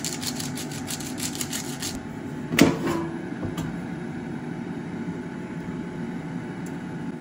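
Hand grinder grinding salt and pepper in a fast run of clicks for about two seconds. Then one loud clunk as the air fryer drawer is pulled out. Under it all is the steady hum of the Cosori dual-basket air fryer running.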